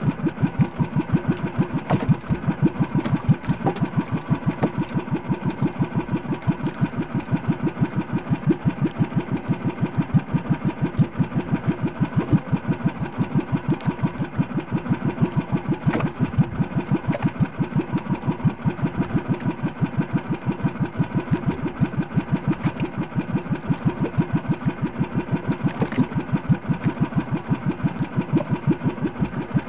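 A motorized outrigger boat's engine running steadily underway, with a fast, even pulsing beat.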